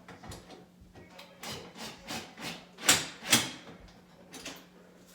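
A series of short knocks and clicks, like tools or hard parts being handled, with two loud sharp knocks close together about three seconds in.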